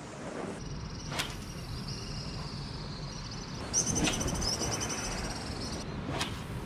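Insects buzzing in a steady high drone, louder and pulsing for about two seconds in the middle, over a low rushing noise. Three sharp clicks stand out, about a second in, near the middle and near the end.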